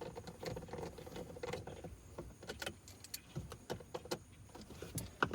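Scattered light metallic clicks and clinks of a hand tool as the last bolt holding the center console is driven and tightened, unevenly spaced.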